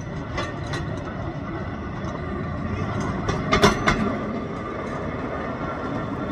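A hand-pumped railroad handcar rolling along the track, its steel wheels rumbling on the rails with a few sharp clacks. It is loudest about three and a half seconds in, as it passes close by.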